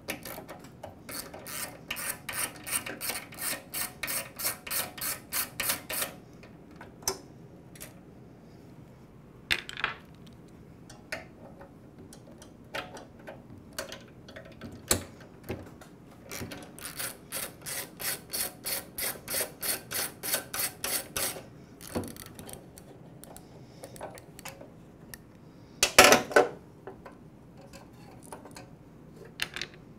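Socket ratchet wrench clicking steadily as it backs out the carburetor's mounting bolts on a lawnmower engine, in two separate runs, one per bolt. A short loud clatter near the end.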